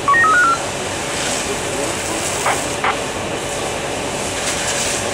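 A steady, loud machine-like drone with a rushing hiss. Right at the start a quick run of five short electronic beeps steps up and down in pitch, and a pair of short knocks comes near the middle.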